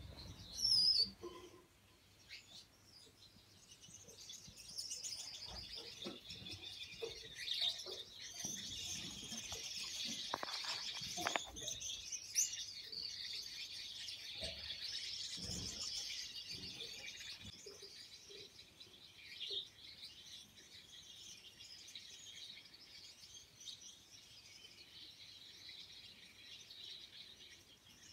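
Gouldian finches chirping and singing: thin, high-pitched twittering that builds about four seconds in, is fullest in the middle and tapers off over the last third, with one sharp call about a second in.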